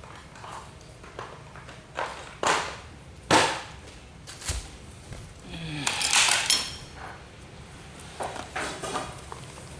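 Metal fittings and hand tools being handled on a workbench: a few sharp knocks and clinks, with a longer clattering rattle about six seconds in.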